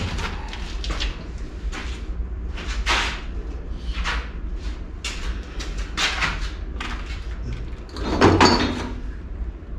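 Scattered knocks and scrapes of equipment being handled while a plastic watering can is brought to the water pump to prime it. The loudest and longest clatter comes about eight seconds in.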